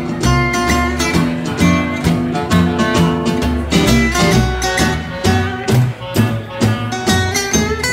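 Gypsy jazz band playing live: an acoustic guitar chops a steady beat, an upright double bass plays a note on each beat underneath, and a clarinet carries held melody notes on top.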